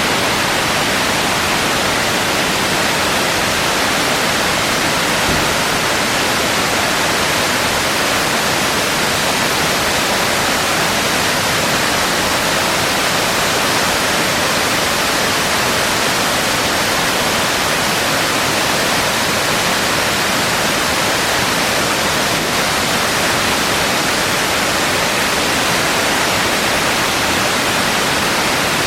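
A waterfall of about 60 metres, split into several strands, pouring down a rock face: a dense, steady rush of falling water that doesn't change.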